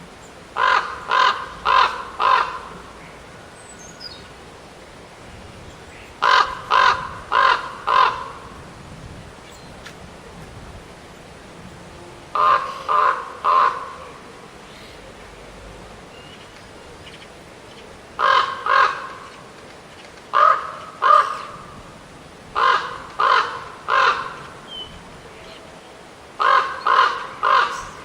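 A corvid cawing in series of two to four short, harsh calls, each series followed by a pause of a few seconds.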